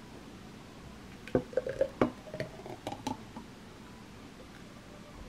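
Thick blended green juice poured from a blender jar into a drinking glass: a quick run of knocks, glass clinks and wet splats in the first three seconds, then a quiet, slow pour.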